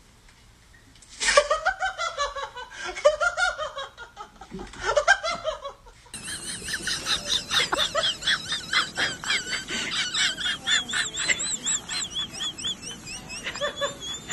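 Human laughter: bursts of laughing from about a second in, then, after an abrupt change about six seconds in, a longer run of quick repeated laughing.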